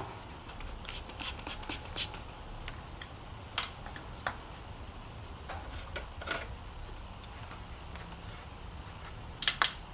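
Scattered sharp clicks and light taps of hand tools and small bolt parts being handled while servicing a mountain bike's rear suspension pivot bolts. There is a quick run of clicks in the first two seconds, a few single ones after, and a cluster near the end, over a faint low hum.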